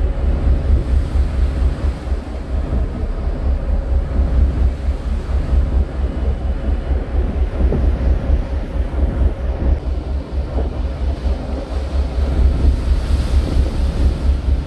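Wind buffeting the microphone on the open deck of a moving harbour ferry, over a steady rush of water along the hull.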